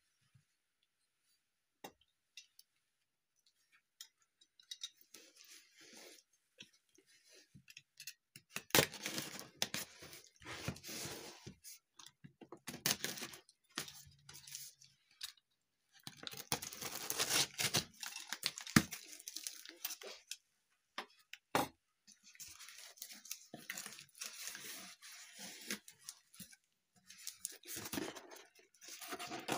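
A cardboard shipping box being opened by hand: a box cutter slitting the packing tape, then the cardboard flaps being ripped and pulled open. This comes as irregular scrapes and tearing rips that start a few seconds in after near silence.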